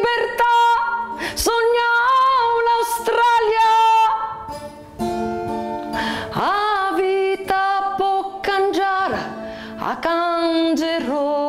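A woman singing a slow ballad in Calabrian dialect, holding long notes with a wavering pitch, over a strummed guitar.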